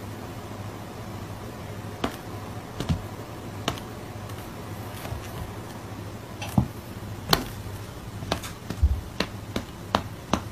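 Cats sparring on an armchair: scattered sharp taps and slaps of paws, coming more often in the second half, over a steady low hum.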